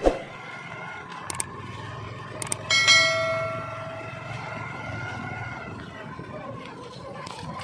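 Subscribe-button sound effect: two pairs of quick clicks, then a bright bell chime that rings out and fades over about three seconds. Underneath is steady outdoor background noise, with a short thump at the very start.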